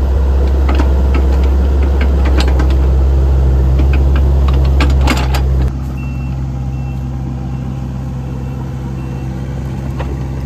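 Engine of a hydraulic work machine running with metal clanks and knocks, then dropping suddenly to a quieter idle about five and a half seconds in. After the drop a reversing beeper sounds faintly in short, evenly spaced beeps.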